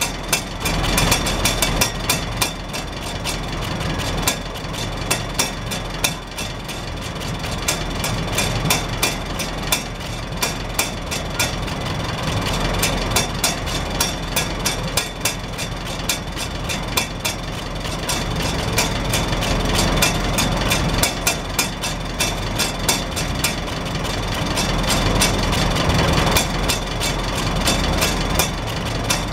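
Farmall Super H's four-cylinder engine idling steadily, heard at its vertical exhaust stack, with a rapid, even tapping from the hinged rain cap flapping on the exhaust pulses.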